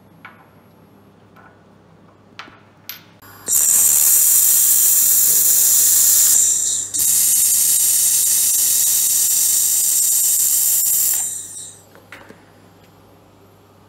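1.5 kW handheld laser welder laying a butt weld on 1 mm aluminium with filler wire: a loud, steady high hiss for about eight seconds, with a brief break about halfway through. A few light clicks come before it.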